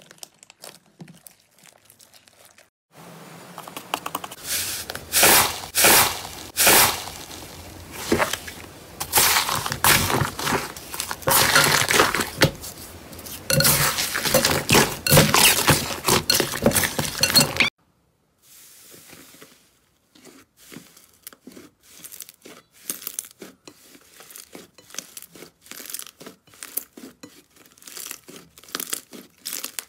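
Hands squeezing and kneading slime, making many crackling, popping clicks. The loudest stretch, from about 3 s until it cuts off near the middle, is a blue slime with foam beads being squished in a glass bowl. After that a soft pink slime is kneaded with quieter, rapid little pops.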